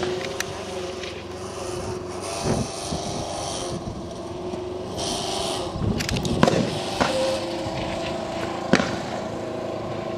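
Sharp rifle-shot cracks, the loudest about six and nine seconds in, over a steady engine-like hum.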